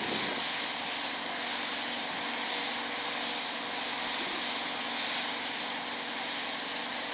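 Snowmaking fan gun running: a steady hiss with a faint hum under it.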